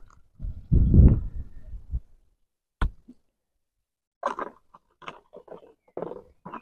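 A bushcraft knife blade cutting a shaving off a dry wooden stick, a scraping crunch lasting about a second. A single sharp click follows, then a run of short rustles and clacks near the end as knives and sticks are handled at a woodpile.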